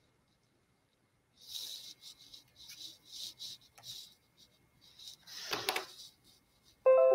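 Soft, irregular rustling and scraping noises with a few clicks, as of hands working at a computer. Near the end a loud chime of several notes sounds suddenly and starts to fade.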